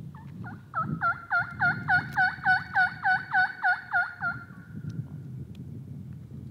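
Turkey call sounding a run of about a dozen hen yelps, loud and evenly spaced at about three a second, tailing off in a fading held note about five seconds in.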